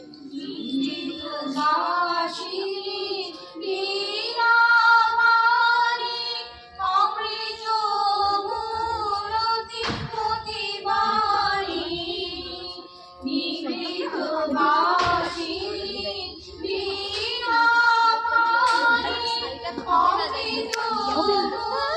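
Singing to music: a high voice holds long melodic phrases with a wavering vibrato, broken by short pauses, with a sharp knock about ten seconds in.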